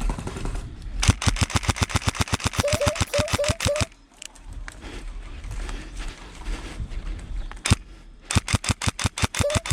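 Airsoft electric rifle (AEG) firing on full auto: a rapid rattling burst of about three seconds, a single shot later on, then another burst near the end, at about fourteen shots a second.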